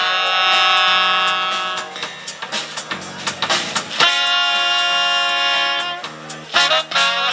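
Live funk band playing: saxophone and trombone hold a long note together for about two seconds, drum hits follow, then the horns hold a second long note, and short punchy horn stabs come near the end, all over a drum kit.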